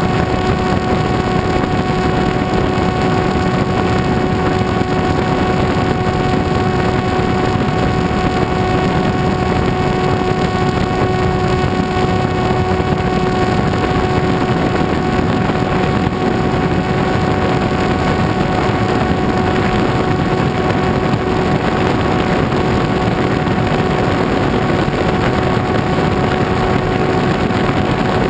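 Electric brushless motor (Exceed RC Rocket 3015, 1640 kV) turning an APC 9x6 propeller on an FPV RC plane in flight, heard from the plane's onboard camera: a steady pitched whine at constant throttle over loud rushing wind noise.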